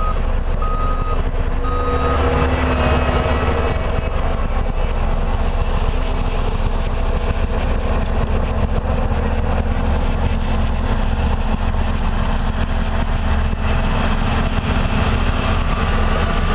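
Heavy road-building machinery, a motor grader, running close by with a steady diesel rumble. A reversing alarm beeps three times in the first two seconds.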